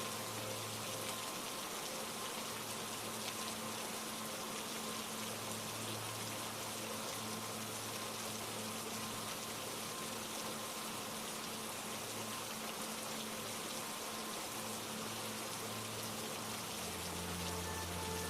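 Steady rain falling, an even hiss of drops without a break. A faint low sustained hum sits beneath it and shifts to a different pitch near the end.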